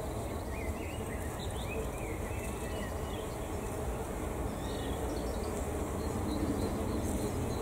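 Bees buzzing steadily around wooden insect hotels, with a few short bird chirps in the first few seconds.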